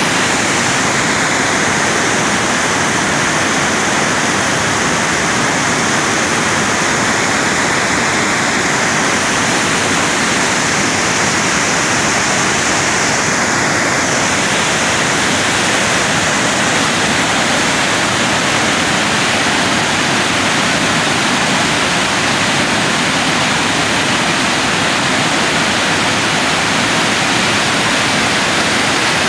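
Waterfall on Hardy Creek cascading over boulders and logs close by: a loud, steady rush of white water.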